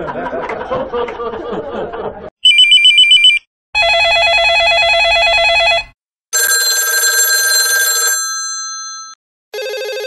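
Recorded laughter that cuts off about two seconds in, followed by a series of telephone rings separated by short silences: a rapid electronic trill, a longer warbling ring, a ring that fades away, and another warbling ring starting near the end.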